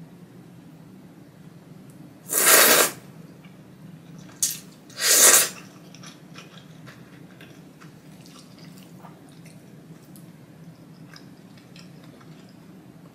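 Two loud slurps of thick Jiro-style ramen noodles, about 2.5 s and 5 s in, the second led by a short sharp one. After them come faint scattered clicks of chewing.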